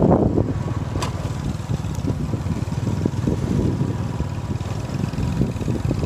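Vehicle driving along a dirt road: a steady low rumble of engine and road noise, with one sharp click about a second in.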